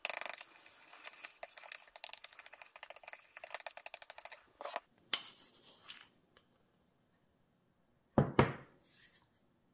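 Metal spoon stirring liquid in a bowl, scraping and clinking rapidly against the bowl for about four and a half seconds, then a few slower strokes. After a short pause, two loud knocks close together near the end.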